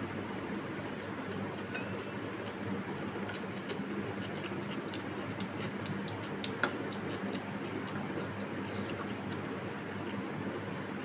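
Close-up eating sounds of rice and mutton curry eaten by hand: many small wet clicks and smacks from chewing and from fingers mixing rice on a metal plate, with one sharper click about two-thirds of the way in, over a steady low background hum.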